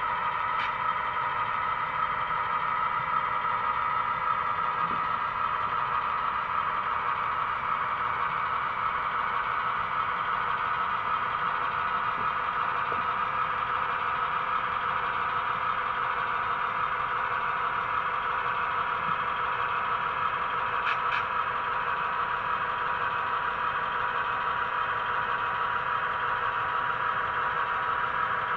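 Sound-equipped model Conrail diesel locomotive's onboard sound running a steady diesel engine sound as it hauls a covered hopper at slow switching speed.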